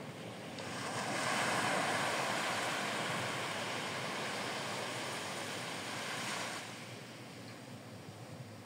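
A small wave breaking and washing up a sandy beach: a hiss of surf that swells about a second in, holds, and dies away near the end.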